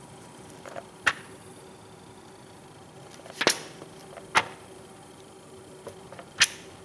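Pages of a thick mail-order catalogue being flipped: four quick swishes of turning paper, a second or two apart, with a few softer rustles between.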